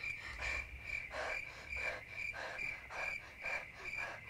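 Crickets chirping in a steady, evenly pulsing rhythm of about three chirps a second, over a low steady hum.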